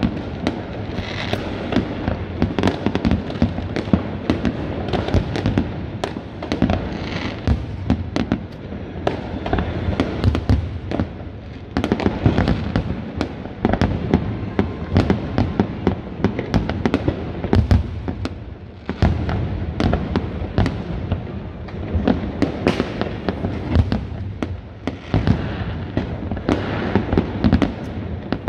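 Aerial fireworks display: many shells bursting one after another in an unbroken barrage of overlapping bangs, with a brief lull about two-thirds of the way through.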